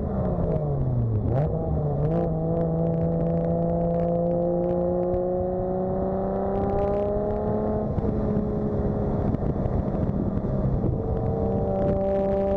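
Turbocharged Toyota 2JZ-GTE straight-six heard from inside the cabin. The revs drop sharply at a gear change just after the start, then the engine pulls at light throttle with its pitch slowly rising, with another dip in the sound about 8 s in before it steadies again.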